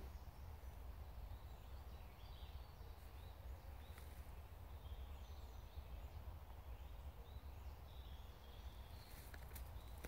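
Faint woodland ambience: a low steady rumble with a few quiet, scattered bird chirps and an occasional soft click.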